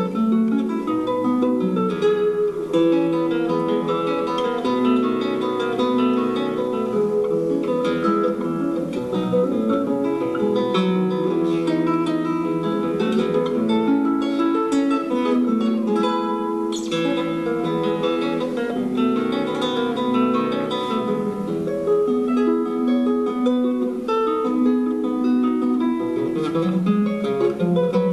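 Solo classical guitar playing an Argentine gato fingerstyle: a plucked melody over a moving bass line, with a few sharp strummed chords.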